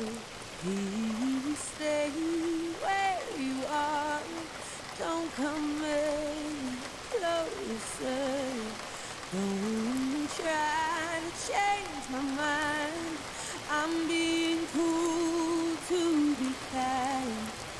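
Steady rain with a slow ballad under it: a woman sings a low, drawn-out melody with vibrato on the held notes.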